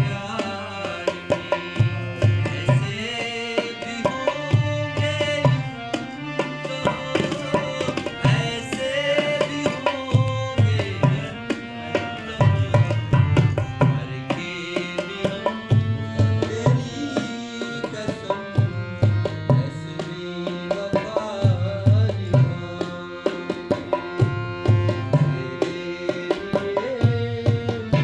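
Dholak (two-headed barrel drum) playing a steady hand-drum rhythm, with its deep bass strokes recurring in a regular pattern, under a harmonium melody.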